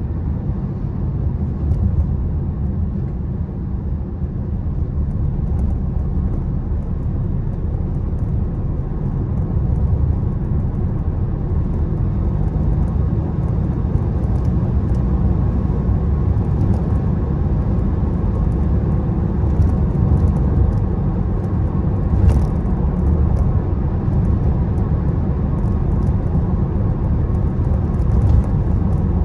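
Steady low road and engine rumble inside a moving car's cabin, getting a little louder about a third of the way in, with scattered faint light ticks.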